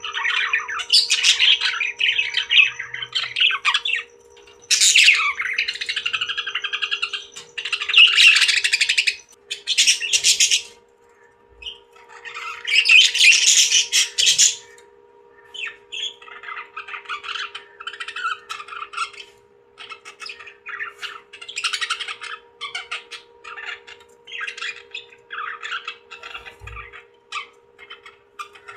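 Parrots squawking and chattering in harsh, rapid calls. The calls are loud and dense for the first half, then come in shorter, sparser bursts. A faint steady hum runs underneath.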